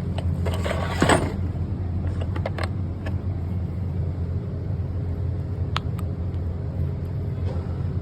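GM engine idling steadily, with scattered sharp clicks over the running. The engine is shown as a case of bad lifters.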